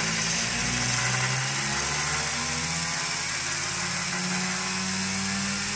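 Harbor Freight 1x30 belt sander, converted to a PSI Woodworking DC lathe motor, running with its abrasive belt and felt wheel spinning. Its pitch falls about a second in and climbs back over the next few seconds, as the motor speed changes.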